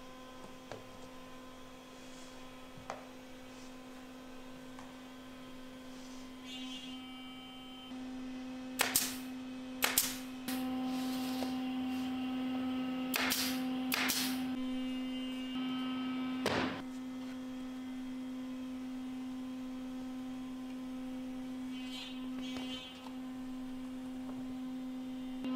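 A steady machine hum, broken by five sharp shots of a pneumatic stapler fastening a thin plywood ring: two about nine and ten seconds in, two more around thirteen and fourteen seconds, and a last one near seventeen seconds.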